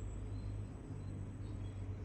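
Songbirds chirping faintly, a few short high notes, over a steady low rumble.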